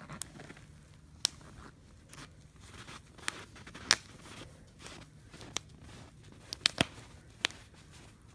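Wood campfire crackling, with scattered sharp pops from the burning wood and a cluster of louder pops a little before the end.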